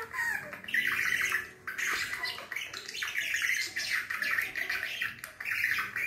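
Budgerigar chattering: a rapid, near-continuous run of chirps and squawky warbles with a couple of short breaks.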